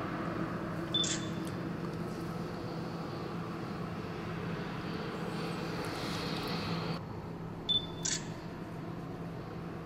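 Camera shutter clicks, twice (about a second in and near eight seconds), each with a short high beep just before the click, over a steady low background hum.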